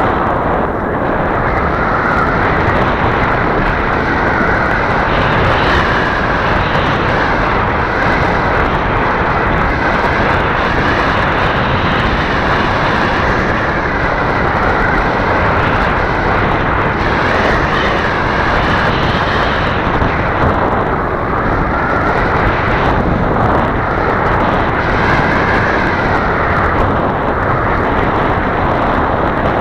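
RC model Cessna 350 in flight, heard from a camera on its wing: a steady rush of air mixed with the drone of the motor and propeller. The whine wavers up and down in pitch as the throttle changes.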